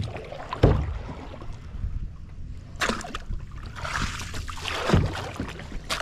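Kayak paddling: the paddle dipping and sloshing through creek water, with a low bump roughly every two seconds.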